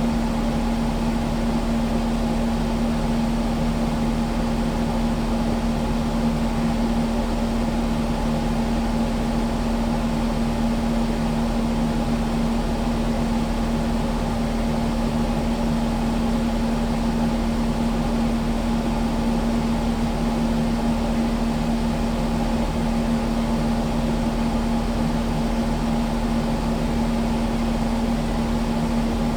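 Kubota skid steer's diesel engine running at a steady speed: a constant hum with one strong steady tone and no change in speed.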